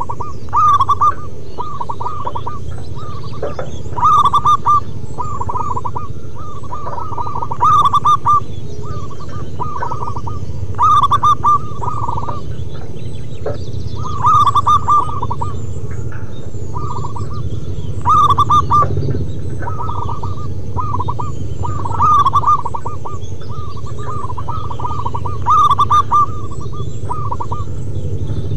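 Zebra doves (perkutut) singing their staccato cooing song: quick runs of short coos repeat almost without a break, with a louder phrase about every three to four seconds, over a steady low rumble.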